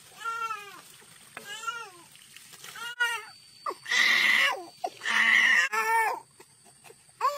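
A baby crying: a series of short wails that rise and fall in pitch, about one a second, with two longer, louder, harsher cries about halfway through.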